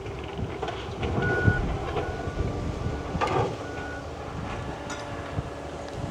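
Vehicle backup alarm beeping about once a second over a low engine rumble, with a brief louder rattle about three seconds in.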